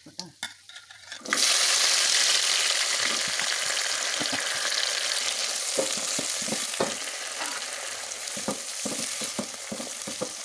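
Sliced onions dropped into hot spiced oil in a metal pot. A loud sizzle starts suddenly about a second in and slowly dies down, while a ladle scrapes and knocks against the pot as the onions are stirred.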